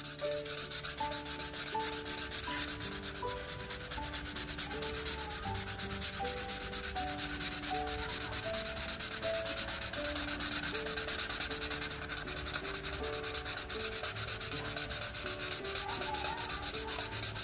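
Blue felt-tip marker scribbling back and forth on paper in rapid, even strokes as it colours in a shape. A soft background melody runs underneath.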